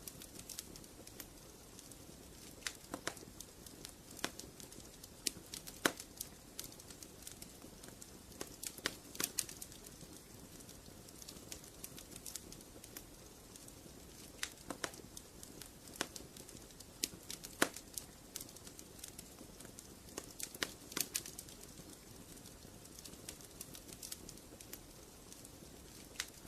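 Wood fire crackling in a fireplace: irregular sharp pops and snaps over a low steady hiss of flame.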